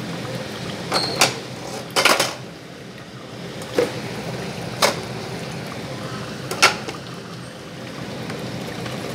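A ladle stirring thick curry in an open pressure-cooker pot, knocking sharply against the pot several times, with a quick cluster of knocks about two seconds in. Under it runs the steady hum of the kitchen chimney (range hood) fan.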